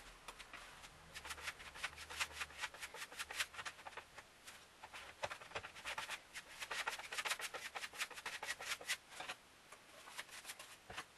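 A putty knife scraping filler across a wooden tabletop in quick, repeated strokes, with a short pause near the end.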